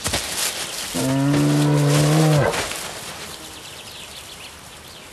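Brown bear cub giving one drawn-out, low bawl about a second and a half long, its pitch steady and then dropping as it ends. Before it, in the first second, there is crackling from the needles and twigs of the anthill the cub is digging at.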